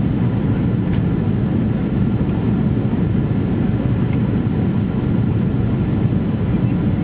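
Steady low rumble of airliner cabin noise inside a Boeing 777 in flight, from its engines and the air rushing past the fuselage.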